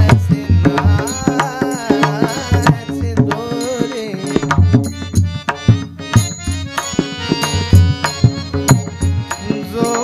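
Devotional bhajan music: a pakhawaj drum playing a run of strokes with harmonium accompaniment, and a sung line in the first few seconds.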